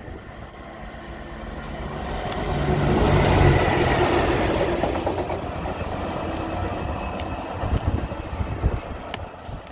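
A train passing on the line, growing louder to its loudest about three seconds in and then slowly fading as it goes by, with a few sharp clicks near the end.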